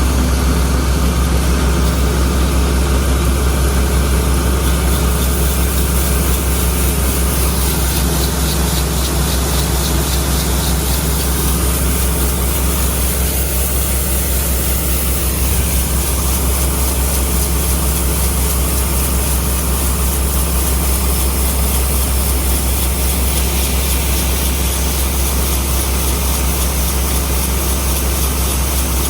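Large diesel engine of heavy farm machinery running steadily, a deep, constant drone.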